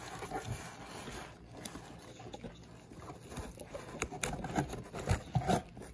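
Rustling and scuffing of a nylon carrying bag being handled, with scattered light clicks and knocks, a few louder ones in the last couple of seconds.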